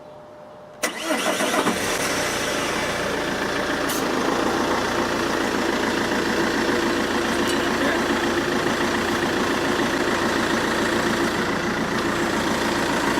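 Car engine cranked by the starter and catching about a second in, then settling into a steady idle, restarted to run the freshly recharged air-conditioning system for a few more minutes. A single sharp click sounds a few seconds later.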